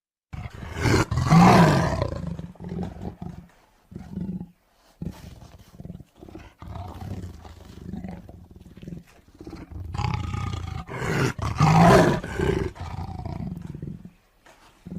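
A tiger roaring: two loud roars about ten seconds apart, with shorter, quieter calls repeating in between.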